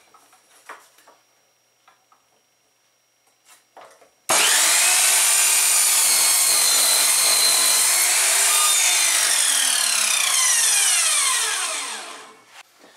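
Electric mitre saw switched on about four seconds in, its blade running at full speed and cutting through a pallet-wood board, then switched off and winding down with a falling whine near the end.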